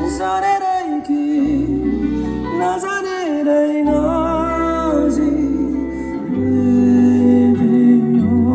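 A band playing a song: a sung melody with long held and sliding notes over guitar and bass.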